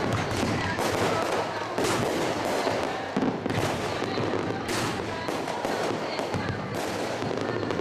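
Aerial fireworks bursting in rapid succession: a dense, continuous crackle of shell breaks, with several louder bangs spread through.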